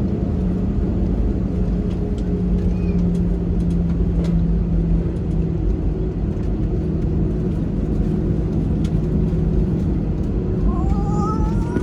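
Steady cabin drone of an Airbus A320-216 with its CFM56 engines running at low power, a constant low rumble with a steady hum. A young child starts to cry near the end.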